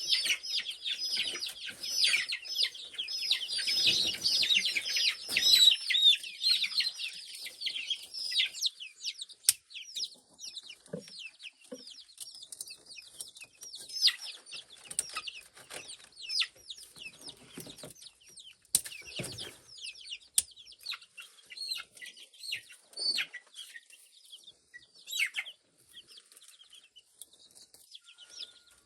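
A flock of young chickens peeping and clucking in many short, high calls. The calls are dense and loud for the first eight seconds, then come scattered, with a few low thumps among them.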